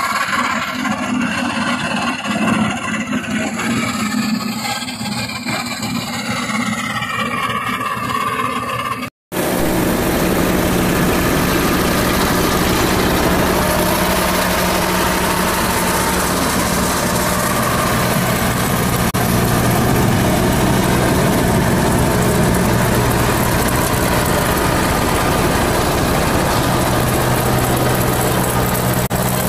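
Basant ride-on mower's engine running as it mows grass. A brief dropout about nine seconds in is followed by a louder, steady engine sound with a low hum.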